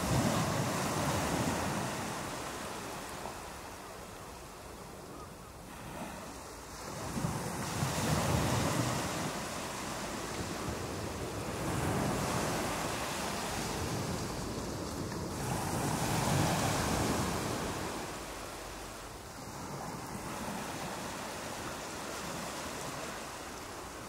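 Ocean surf breaking and washing up the beach, a steady rush that swells and fades with each wave about every four seconds.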